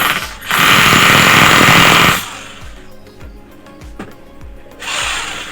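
KPT 0810 5 kg electric demolition breaker hammering in bursts: a loud run under two seconds long near the start and a shorter, weaker one near the end. The blows come evenly, the sign of a tool hammering properly with no remaining fault.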